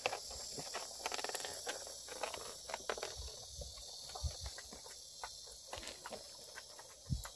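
Jindo puppies play-wrestling on wooden decking: irregular light clicks and scrapes of their claws and paws scrabbling on the boards, with a couple of dull low thumps, one about four seconds in and one near the end.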